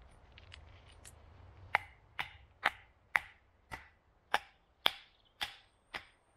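A hand-held wooden tool strikes down hard nine times, about twice a second, starting nearly two seconds in. Each stroke gives a sharp knock with a short ring.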